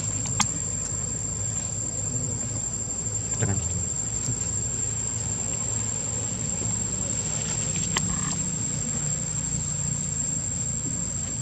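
Insects keep up a steady, high-pitched drone over a low outdoor rumble, with a few brief clicks about half a second, three and a half seconds and eight seconds in.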